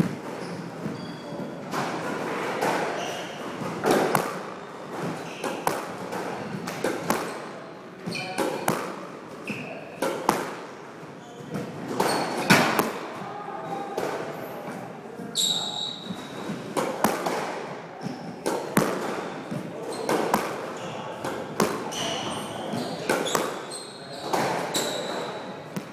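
Squash ball struck by a racket and smacking off the front wall in quick repeated hits, with short squeaks of court shoes on the hardwood floor in between.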